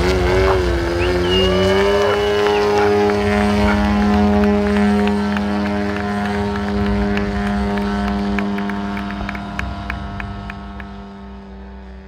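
Engine and propeller of a radio-controlled aerobatic model plane. The pitch wavers while the plane hovers nose-up, rises about two seconds in and holds steady at full throttle as it climbs straight up, then slowly fades. Faint sharp ticks run over it.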